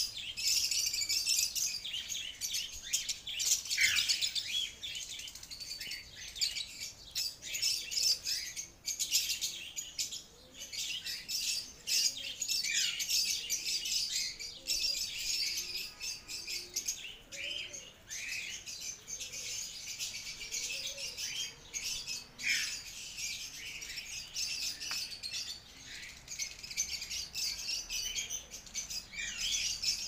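A dense, continuous chorus of many small cage birds chirping, with now and then a call sliding down in pitch.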